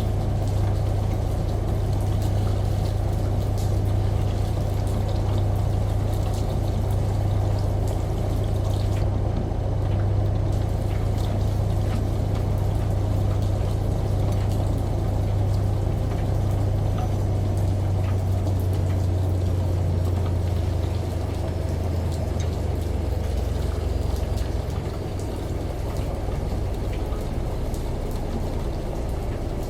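Washing machine running: a steady low hum with water pouring and sloshing inside. It gets a little quieter near the end.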